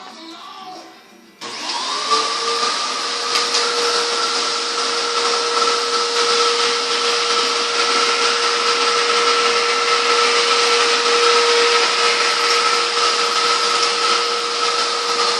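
Hoover vacuum cleaner with its pet hair attachment switched on about a second and a half in, its motor whine rising for about a second and then running steady over a loud rushing of air.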